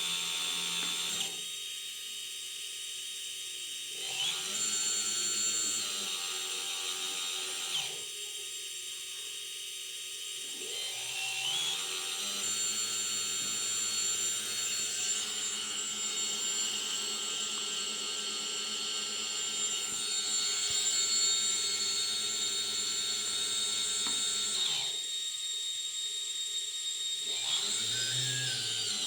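Small brushless motor of an Eachine Tyro 109 quadcopter spinning with a high whine and rough noise from a bad bearing. It winds down and spins up again several times, pitch sliding at each change.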